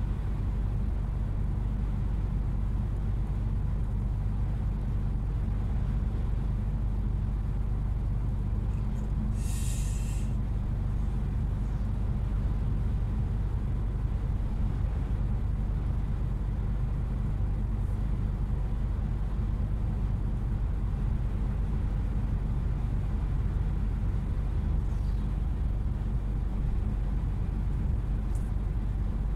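Truck engine running steadily on the move, heard from inside the cab as an even low drone with road noise. A short hiss about ten seconds in.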